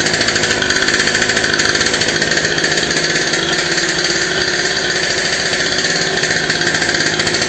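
Small 49cc two-stroke engine of a kids' pocket dirt bike running steadily, a fast, even buzzing pulse.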